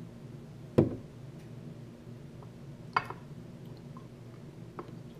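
Two sharp knocks of a glass measuring cup and a plastic milk jug handled on a granite counter, the first the loudest, about a second in and again about three seconds in, then milk pouring into the glass measuring cup near the end.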